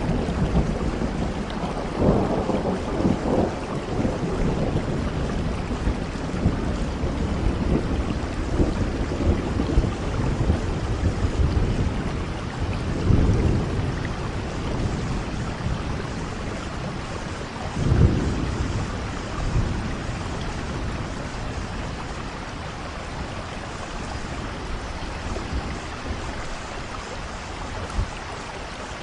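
Steady rain with rolling thunder: low rumbles swell several times, the strongest about two-thirds of the way through, over a constant hiss of rainfall.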